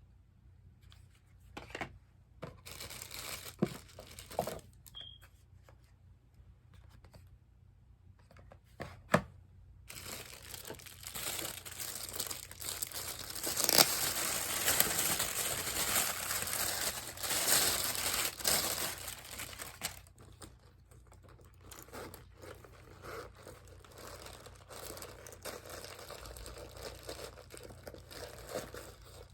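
Packaging being unwrapped by hand, crinkling and tearing. A few sharp clicks and short rustles at first, then about ten seconds of dense, louder crinkling and tearing, easing to softer rustling.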